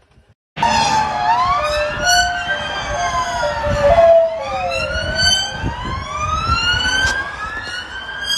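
Police car siren wailing, its pitch sweeping slowly up and down, starting abruptly about half a second in, over a low rumble.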